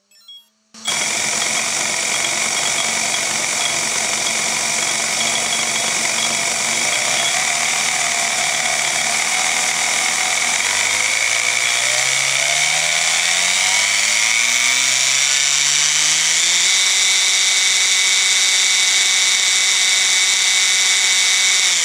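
Brushless RC motor driving a 3D-printed PETG gear train and driveshaft with no wheel fitted, running with no load. It gives a loud mechanical whir. Its whine rises slowly in pitch as the speed is gently ramped up, then holds steady for the last few seconds.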